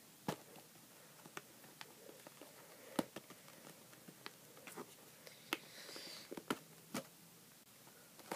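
Faint, scattered clicks and taps of a small cardboard retail box being handled and opened, with a brief rustle of the packaging about six seconds in.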